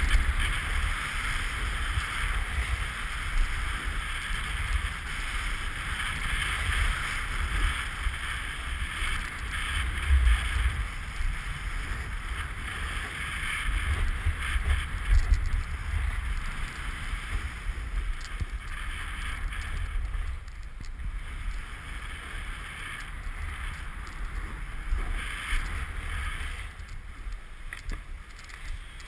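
Wind rumbling on an action camera's microphone while snowboarding downhill, under the hiss and chatter of the snowboard scraping over bumpy, cut-up snow. The scraping rises and falls with the turns and eases in the second half.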